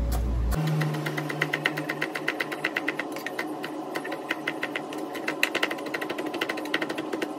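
Kitchen knife rapidly chopping fresh parsley on a plastic cutting board: quick, even taps of the blade on the board, several a second. The taps start just after the beginning and keep on.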